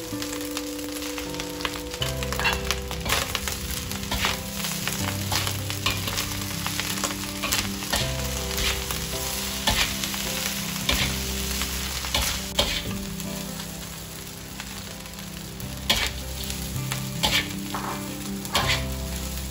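Fried rice with kangkung sizzling in a wok as it is stir-fried, the metal spatula scraping and knocking against the wok many times throughout.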